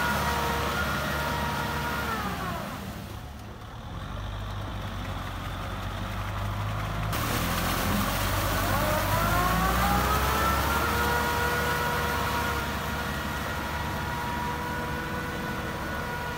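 Kubota tractor's diesel engine running a rotary tiller through flooded paddy mud, with a steady whine over the engine note. About two seconds in, the pitch and loudness drop as the engine slows, then climb back up over a couple of seconds and hold steady again.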